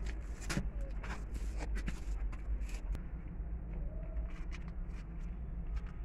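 Close rustling and soft scattered clicks, densest in the first three seconds, over a steady low rumble, with a brief faint whine about four seconds in.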